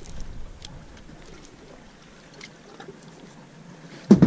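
Faint open-water ambience on a fishing boat with a few light clicks, then a sudden loud bump just before the end.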